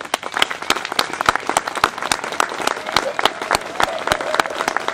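Audience clapping, building within the first second into steady applause.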